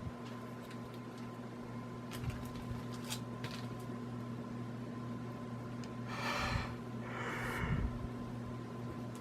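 Hunter ceiling fan running with a steady motor hum, a few light clicks about two to three seconds in. Two short breathy rushes, a sniff or breath, come about six and seven seconds in.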